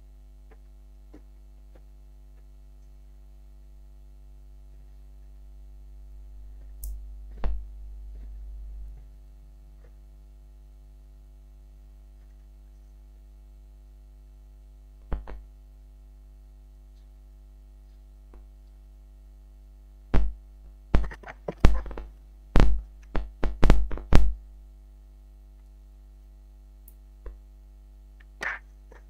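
Steady electrical mains hum with scattered clicks and knocks of handling on a repair bench, a quick run of sharp knocks about two-thirds of the way through.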